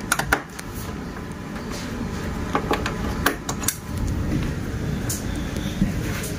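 Handling noise: a scattering of sharp clicks and light knocks as equipment is handled, over a low rumble.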